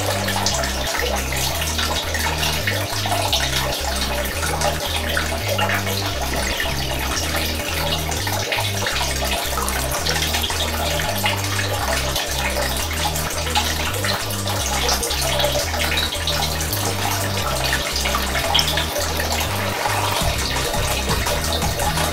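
Hands squeezing and kneading a foam aquarium filter sponge submerged in a bucket of water, with continuous sloshing and splashing as the trapped mud is rinsed out.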